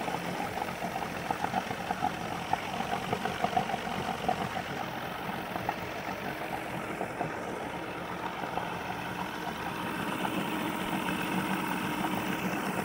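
Evinrude V6 two-stroke outboard motor, cowling off, idling steadily and evenly with its lower unit in a tub of water. It idles well here even though two of its cylinders are low on compression.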